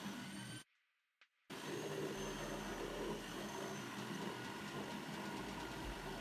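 Reciprocating saw running and cutting into the end of a wooden rafter, a steady buzzing drone. Near the start it breaks off to silence for just under a second, then carries on.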